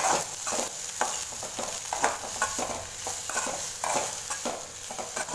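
Okra pieces frying in oil in a metal kadai, stirred and tossed with a spatula: irregular scraping and clinking strokes of the spatula on the pan over a steady sizzle.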